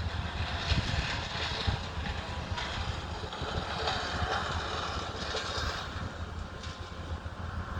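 Steady outdoor rumble of distant engines from cleanup machinery, with wind buffeting the microphone.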